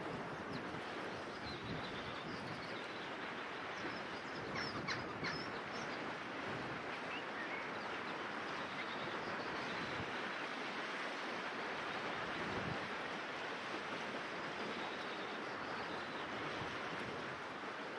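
Ullapool River running steadily over a stony bed, a continuous even rush of water. A few brief, high bird chirps come through it about four to five seconds in.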